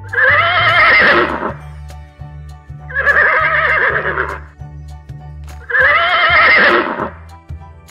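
A horse whinnying three times, each whinny about a second and a half long with a quavering pitch, spaced about three seconds apart, over a background music track with a steady low beat.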